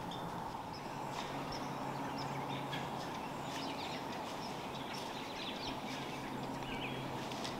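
Woodland ambience: small birds chirping here and there over a steady low hum.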